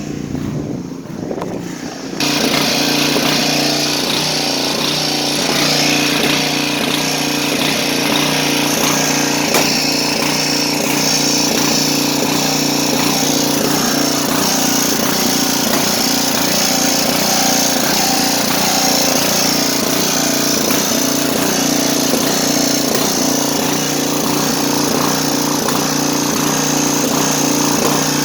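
Riding lawn mower's small gasoline engine running steadily, left to burn off its fuel before winter storage. It gets louder about two seconds in and then holds a constant note.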